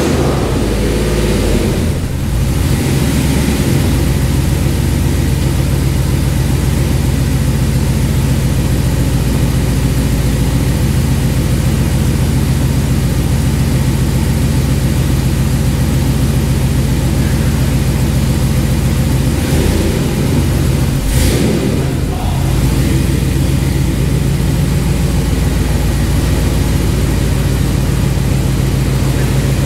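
Freshly swapped 5.7-litre HEMI V8 in a 2nd-gen Dodge Ram 1500 running steadily at low speed just after starting, on Holley Terminator X fuel injection. Around 20 to 22 seconds in the steady note breaks briefly, with a single sharp knock.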